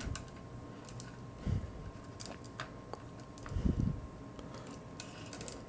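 Faint clicks and rustles of a small plastic action figure being handled and posed on a clear display stand, with two soft low thumps about a second and a half and nearly four seconds in.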